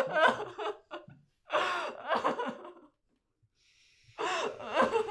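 A woman crying: gasping, shaky sobbing breaths in three bouts with short silences between them.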